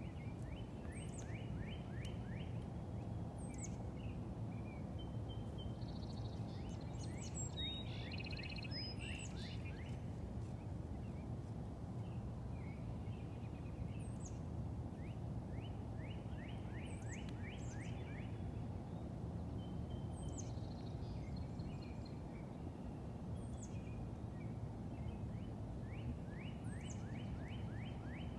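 Outdoor evening ambience: a steady low rumble, with wild calls over it. Short rattling trills repeat every few seconds, and thin high chirps come now and then.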